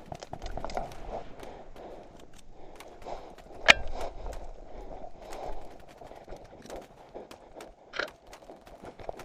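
Footsteps and rustling while moving across an airsoft field, with scattered small clicks. A sharp airsoft shot cracks about three and a half seconds in, and another comes near the end.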